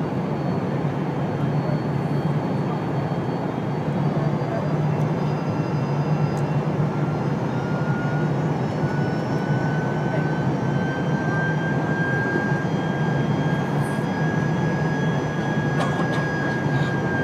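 Steady cabin roar of a Boeing 787 airliner in flight, jet engines and airflow heard from inside the cabin. A faint whine rises slowly in pitch through the middle, and a few faint clicks come near the end.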